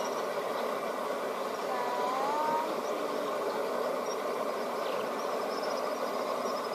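Speedboat outboard engines idling, a steady hum. A short rising whistle sounds about two seconds in.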